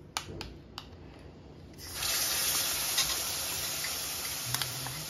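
Wet spice paste hitting hot oil and roasted gram flour in a stainless steel kadhai: a loud sizzle starts suddenly about two seconds in and slowly dies down. A few light clicks of a spoon against the bowl and pan come before and during it.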